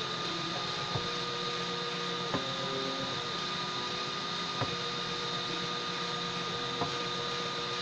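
Homemade DIY 3D printer printing, with steady hiss and hum and the changing whine of its stepper motors as the print head moves. A sharp tick comes about every two seconds.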